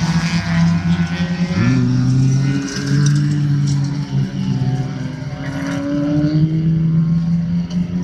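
Several Fiat Panda autocross cars racing on a dirt track, their small engines revving hard. The pitch drops and climbs sharply about a second and a half in as a car shifts and accelerates, then climbs steadily again later on.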